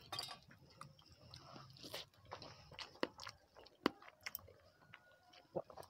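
Faint eating sounds: scattered small clicks and crackles of fingers mixing rice on banana leaves and of chewing, the sharpest click a little under four seconds in.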